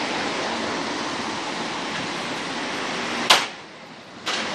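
Steady wind noise on the microphone. About three seconds in comes one sharp bang as a metal flood-barrier beam is handled against the scaffold tower. The rush drops away for about a second after the bang and returns with a small click.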